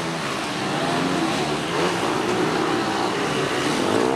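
Several motocross dirt-bike engines revving up and down together, their pitch rising and falling continuously as the bikes work around the track.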